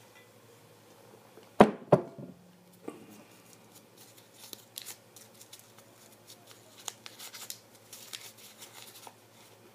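Two sharp knocks about one and a half and two seconds in, then a drawn paper slip being handled and unfolded, with small irregular crinkling clicks.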